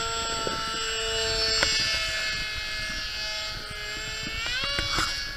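RC plane's propeller motor whining steadily in flight. Its pitch dips a little partway through, then rises about four and a half seconds in.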